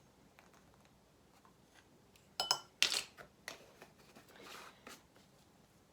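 Light clinks and taps of a metal measuring spoon against kitchenware while spices are measured out. There is a cluster of sharp clinks about two and a half to three seconds in, one with a brief ring, and a few fainter taps after.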